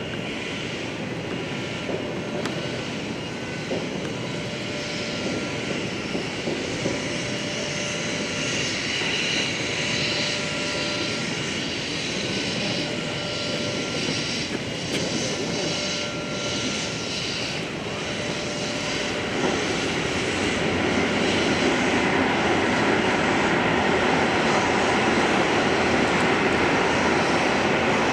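Steam locomotive C57 1 working: a steady rush of steam and machinery noise with faint tones coming and going, growing louder about two-thirds of the way through.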